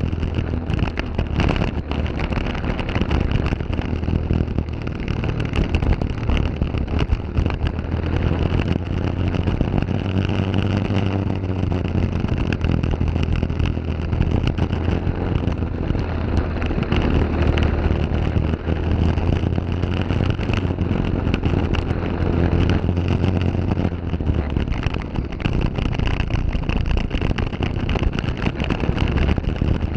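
Briggs & Stratton LO206 single-cylinder four-stroke kart engine running at racing speed, its revs rising and falling as the kart goes through the corners.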